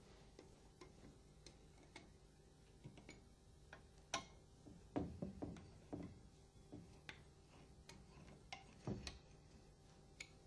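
Faint metallic clicks and taps of a hex key turning the screws that hold an Alfa Laval LKH pump's seal housing to its backplate. A few louder knocks come about four seconds in, in a cluster around five to six seconds, and again near nine seconds.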